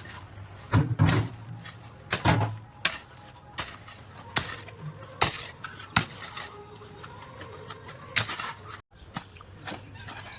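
Irregular knocks and clicks of hard plastic parts being handled and fitted during PVC drain-pipe work, with two duller, heavier thuds about one and two seconds in.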